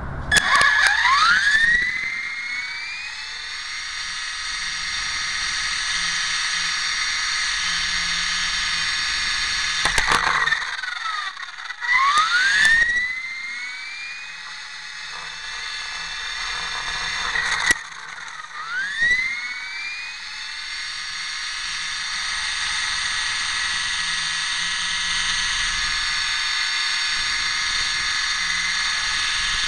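RC model helicopter's motor and rotor running with a high-pitched whine. The whine rises in pitch as it spools up near the start, and again about twelve and nineteen seconds in, each time after a sharp knock and a brief drop; between these it holds steady.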